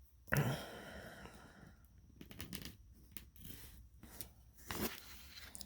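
Packaging being opened and handled by hand. A sudden scraping tear comes about a third of a second in and fades over a second and a half, followed by scattered small rustles and clicks.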